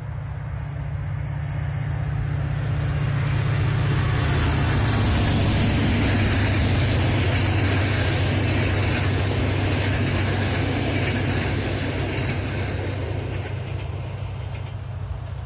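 Diesel-hauled passenger train passing: the locomotive's engine drone and the rolling of wheels on rail grow louder, peak near the middle as the engine goes by, then fade as the coaches roll away.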